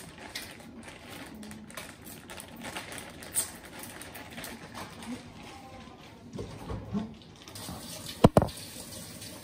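Kitchen food-prep handling noises over a steady hiss: small knocks and clicks, with one sharp knock a little after eight seconds that is the loudest sound.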